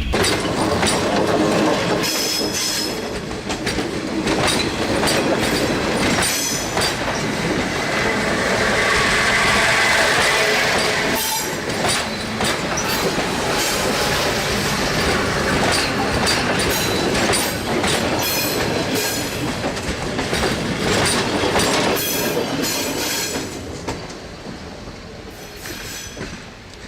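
Train running along the track: steady rail noise with many short clicks from the wheels, growing quieter in the last few seconds.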